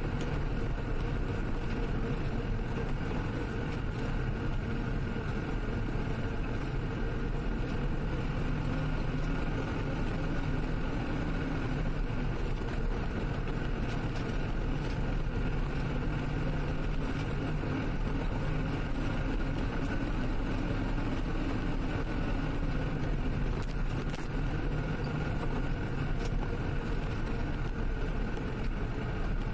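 Vehicle driving steadily along a rough road: a constant engine drone mixed with tyre and road noise, with a few faint knocks.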